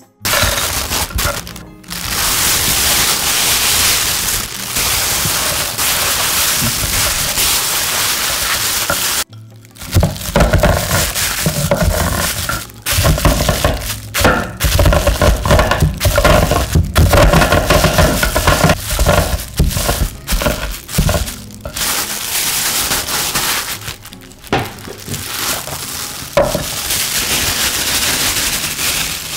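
Almonds inside a plastic bag being crushed with a wooden rolling pin on a wooden board: crinkling plastic, cracking nuts and repeated knocks of the pin, heaviest after the first few seconds.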